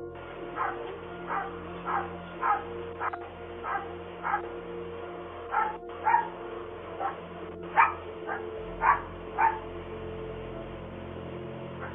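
A dog barking repeatedly, about fifteen short barks, and then falling silent for the last couple of seconds. The sound is thin and cut off at the top, as heard through a doorbell camera's microphone.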